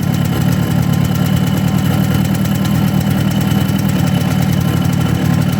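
Suzuki AX100's single-cylinder two-stroke engine running steadily at a low, even speed. It runs clean, with its crankshaft pinion now keyed in place.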